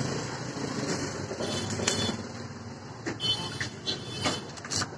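Steady workshop and street background noise with a few short, sharp clicks.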